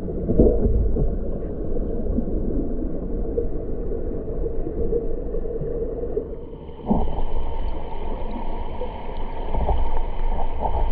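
River water heard through a GoPro held underwater: a dull, muffled rush and gurgle with the high sounds cut away. About seven seconds in the sound shifts, with a few knocks as the camera moves.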